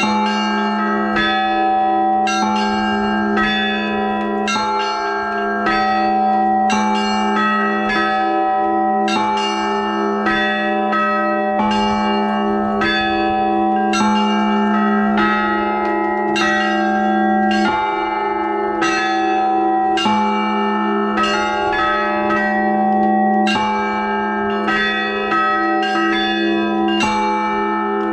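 Church bells ringing: several bells struck in quick succession, about two to three strikes a second, each ringing on over a lasting low tone from a larger bell.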